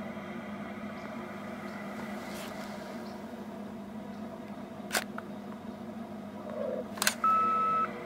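Two sharp clicks a couple of seconds apart, then a steady electronic beep lasting under a second near the end, over a constant low hum and hiss.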